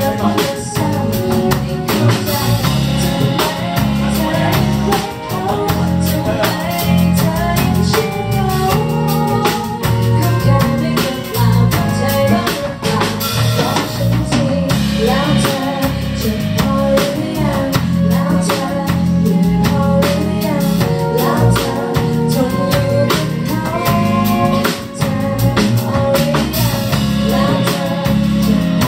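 Live band music from a pop ballad: drum kit, bass and guitar playing, with singing.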